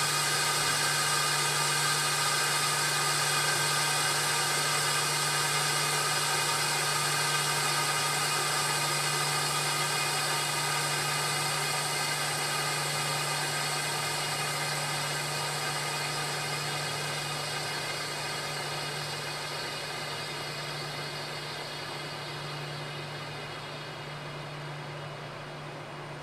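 Air hissing back into a vacuum oven chamber through its release valve after the vacuum is released. The hiss fades slowly as the pressure climbs back toward atmospheric, over a steady low hum.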